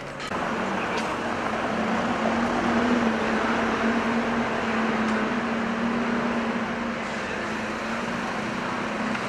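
A steady mechanical hum holding one low pitch over the noise of a street.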